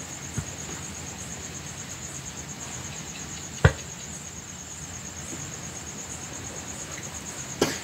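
Steady, fast-pulsing chirring of crickets, with a steel ladle stirring thick gram-flour batter in a steel bowl and clinking sharply against the bowl twice, about four seconds apart.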